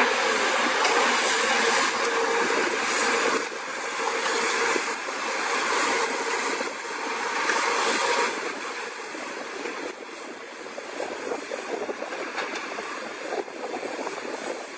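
Hydraulic excavators running under load while they dig, a steady machine noise with a held whine over the first half. About eight seconds in it drops in level and turns rougher and more crackling as a Caterpillar 320CL works its bucket into the soil.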